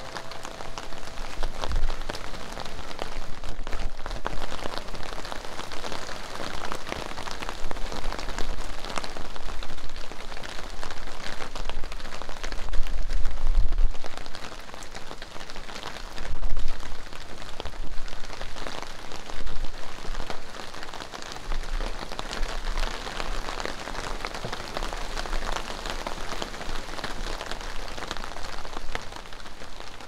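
Light rain falling on garden plants and wet stone paving, with many separate drops ticking close by. A low rumble rises and falls under it and is loudest about halfway through.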